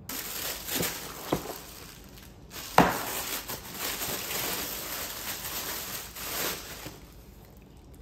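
Cardboard shoe box handled and tissue paper rustling as a pair of sneakers is unwrapped, with a few sharp knocks from the box, the loudest about three seconds in. The rustling stops about a second before the end.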